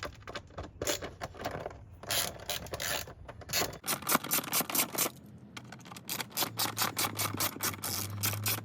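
Hand ratchet with a T25 Torx bit clicking as it works the screws of the engine air filter housing cover. Irregular clicks and scrapes come first, then about four seconds in a fast, even run of ratchet clicks, about five a second.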